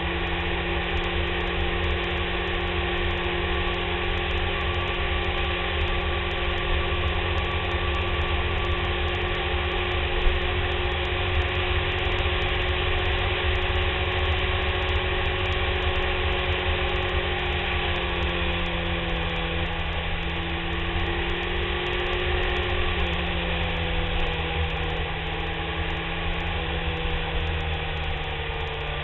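BMW K1300S inline-four engine pulling at a steady cruising speed, with heavy wind rumble on the fairing-mounted microphone and tyre hiss beneath it. The engine note shifts slightly a few times past the middle and eases off near the end; one brief knock about ten seconds in.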